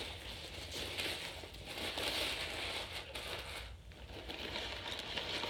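Rustling and crinkling of a nylon bag and the parts inside it being handled, coming and going in uneven spells.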